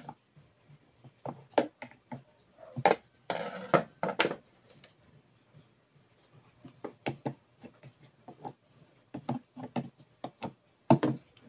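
Scattered small clicks and taps of a hand tool and fingers on a plastic speaker cabinet's battery compartment while a battery pack is worked loose, with a brief scraping rustle about three seconds in.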